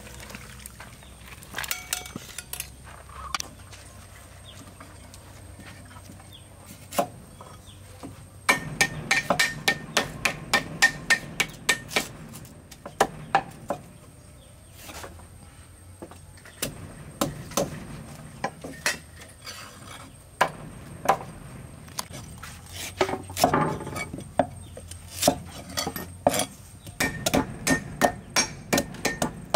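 Steel cleavers chopping on thick wooden chopping blocks cut from tree trunks, slicing a yellow root: runs of sharp knocks, several a second, coming in bursts from about eight seconds in after a quieter stretch.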